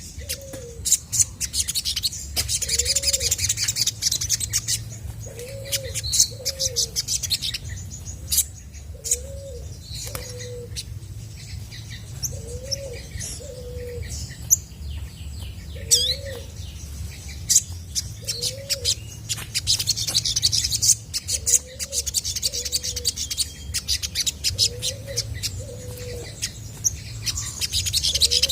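Olive-backed sunbird singing: spurts of high, rapid chirps and trills. Underneath, a low arched cooing note repeats about every second and a half, often in pairs.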